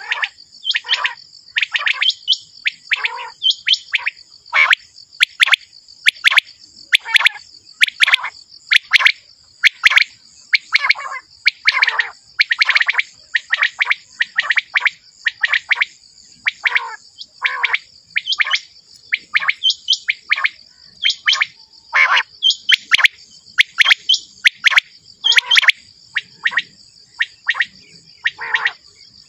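Common quail calling over and over: short, sharp notes that drop in pitch, about two a second, over a steady high hiss.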